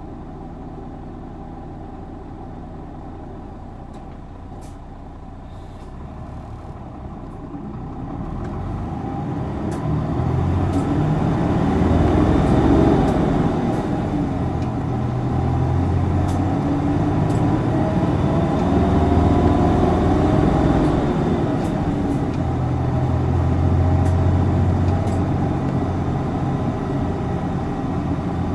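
Isuzu Erga city bus's diesel engine heard from inside the cabin: quiet at first, then pulling away about seven seconds in and revving hard. The revs climb, drop back as it changes up a gear around the middle, and climb again.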